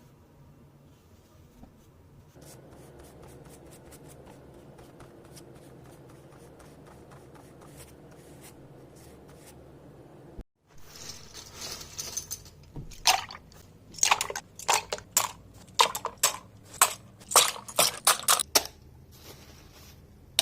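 Hands working on plastic keyboard parts: faint scraping at first, then after a cut a short hissy scrubbing sound and a run of loud, sharp, irregular plastic clicks.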